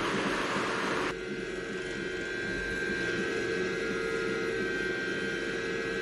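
Steady mechanical hum with faint fixed tones, after a hiss that cuts off about a second in.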